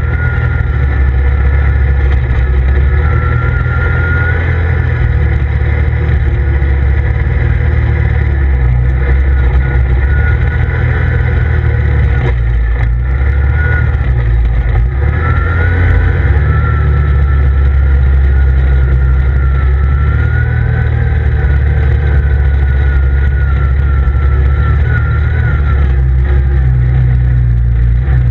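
CF Moto ZFORCE 800EX side-by-side's V-twin engine running steadily while driving, with a heavy low rumble and a thin whine that wavers in pitch. The sound dips briefly twice near the middle.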